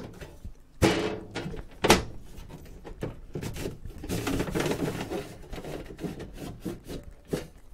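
Aluminium top cover panel of a power-supply case being slid off its frame: two sharp knocks about one and two seconds in, then a long scraping slide of metal on metal, with a few light clicks near the end.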